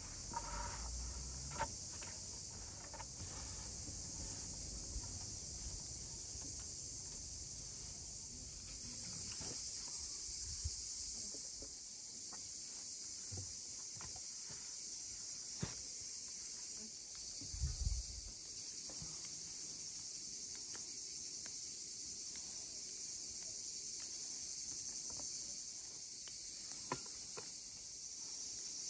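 Steady high chirring of insects, with a few faint clicks and knocks of handling and a brief low thump past the middle.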